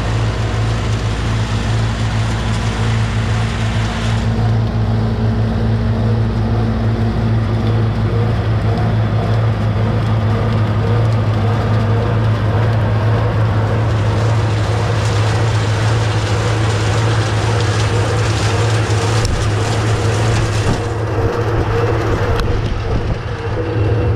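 Tractor pulling an Oxbow pea picker through the vines, engine and picking machinery running steadily with a constant low drone.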